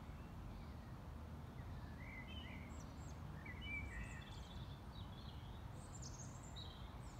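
Outdoor ambience: small birds chirping and twittering in quick short notes, starting about two seconds in, over a steady low rumble.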